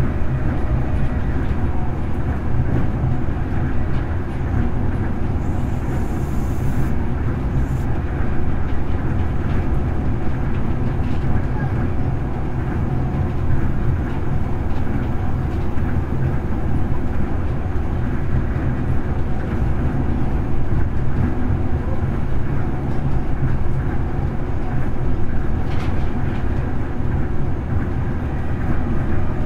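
Onboard running sound of a Tokyo Monorail 10000 series train cruising along its guideway: a steady, loud low rumble from the rubber-tyred running gear on the concrete beam.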